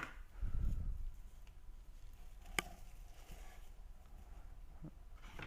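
Hands handling the cube's packaging: a dull low bump about half a second in and one sharp click about two and a half seconds in, with faint rustling between.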